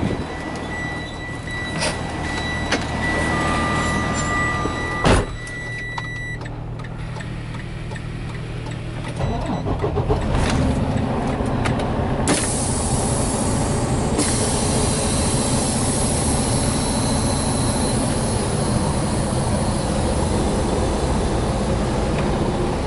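Semi-truck diesel engine running inside the cab while a steady high warning tone sounds for the first six seconds. A sharp knock, like the cab door shutting, comes about five seconds in. From about nine seconds the engine grows louder as the truck pulls forward, and a hiss of air starts about twelve seconds in.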